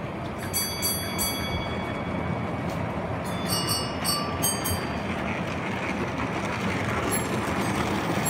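Model railway goods train running along the layout's track and drawing nearer, a steady running noise that grows a little toward the end. Clusters of sharp metallic clinks come about half a second in and again around three and a half to four and a half seconds in.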